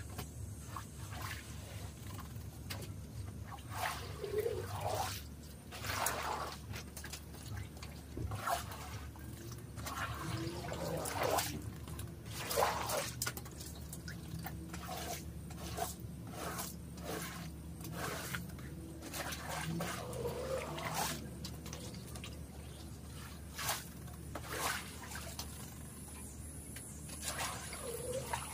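Water splashing and squishing in irregular strokes as a soaked rug is worked during a wash, over a faint steady low hum.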